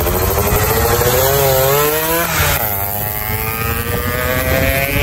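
Yamaha F1ZR two-stroke engine running through a racing exhaust under acceleration. The pitch climbs, drops sharply about two seconds in as the rider changes gear, then climbs again, with wind noise from riding.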